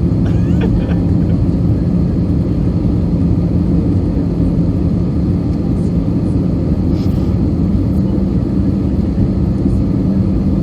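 Steady cabin noise inside an Airbus A320-214 in flight: a constant roar of engines and airflow with a low, even hum.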